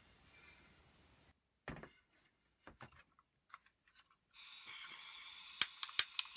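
A few light handling knocks as a hand-held gas torch is picked up, then its gas starts to hiss from the nozzle a little past four seconds in, followed near the end by a quick run of sharp igniter clicks as it is lit.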